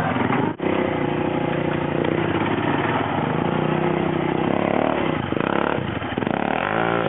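ATV engine running steadily under throttle, with the revs rising and falling near the end.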